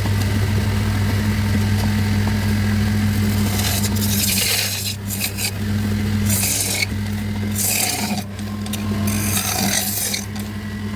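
An electric power tool's motor hums steadily while wood is scraped against it in repeated rough bursts, from about four seconds in.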